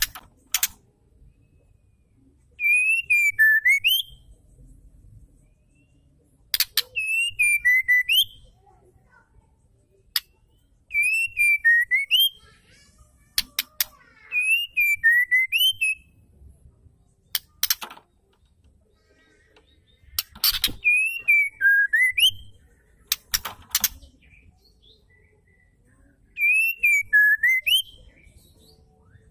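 White-rumped shama repeating the same short whistled phrase six times, a few seconds apart. Each phrase dips and then jumps up sharply over a high scratchy twitter, with sharp clicks between the phrases. The uploader presents it as a female shama's call, used to provoke male shamas into singing.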